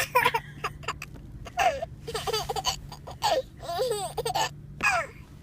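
A young child making a string of short, sharp pretend hiccup sounds with her voice, mixed with giggling.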